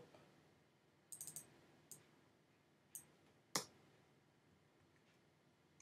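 Computer keyboard keys clicking, faint: a quick run of keystrokes about a second in, then a few single clicks, the last and loudest about three and a half seconds in.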